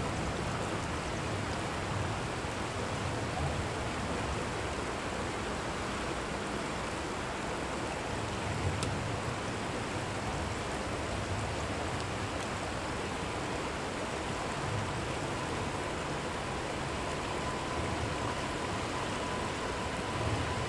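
River water rushing and rippling over rocks in shallow rapids, a steady noise throughout.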